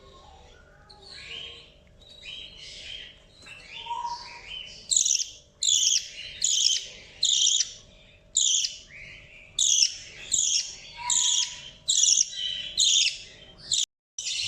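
Budgerigar calling: soft, irregular chirps at first, then from about five seconds in a steady run of loud, high chirps at roughly two a second.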